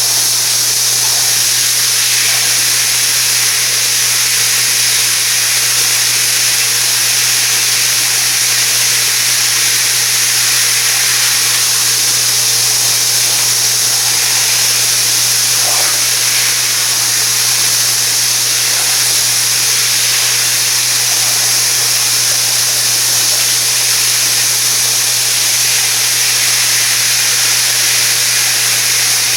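Water spraying steadily from a high-pressure rain shower head: a constant loud hiss, with a steady low hum underneath.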